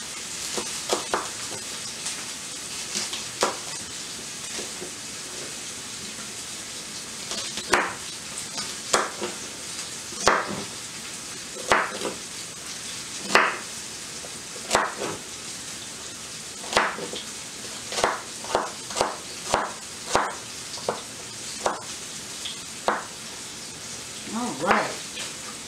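Rump roast searing in a hot skillet, a steady sizzle, with a kitchen knife chopping celery on a cutting board: irregular sharp knocks that come quicker in the second half.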